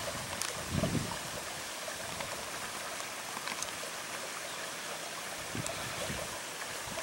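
Small brook babbling, water running steadily over stones. A brief low buffet of wind on the microphone comes about a second in.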